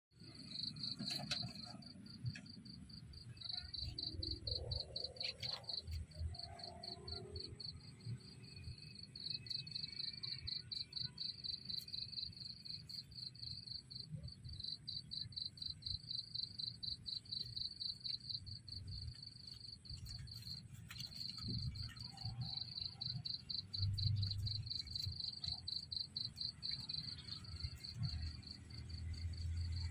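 Cricket chirping in a steady high-pitched pulsing trill, about four or five chirps a second, with a few short breaks, over a low rumble.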